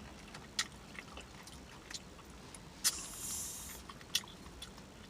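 Close-miked eating: a person chewing and smacking a mouthful of food, with a few sharp wet clicks. The loudest click comes about three seconds in and is followed by a brief hiss.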